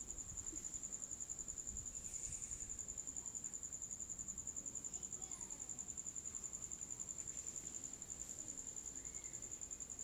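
Cricket chirping steadily: an unbroken, high-pitched trill of rapid, even pulses.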